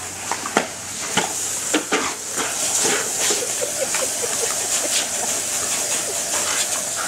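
Garden sprinkler spraying water with a steady hiss, with irregular clicks and splatter as dogs bite and paw at it, and a quick run of short squeaky notes about three to four seconds in.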